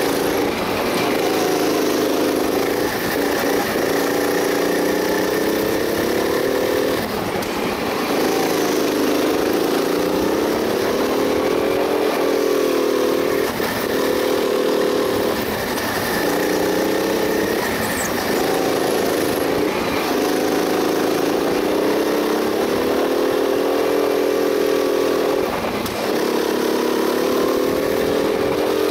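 Go-kart engine running hard, its pitch climbing steadily and then dropping sharply several times as the throttle is lifted into corners.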